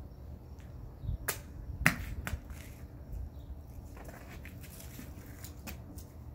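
Machete blade chopping through a cucumber held on a bare hand: two sharp chops about half a second apart a little over a second in, then a few lighter clicks and handling sounds.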